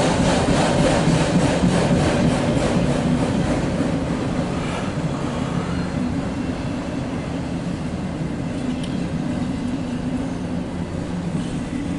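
Empty autorack freight cars of a CSX train rolling past: a steady rumble and rattle of steel wheels on the rails, with a rapid series of clicks in the first three seconds or so.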